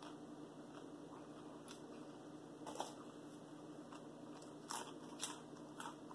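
Crisp potato chip being bitten and chewed, with four short sharp crunches, one about three seconds in and three close together near the end, over a faint steady hum.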